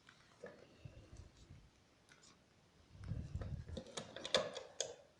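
Faint scattered clicks and light knocks of small objects being handled, growing denser with a low rumble from about three seconds in.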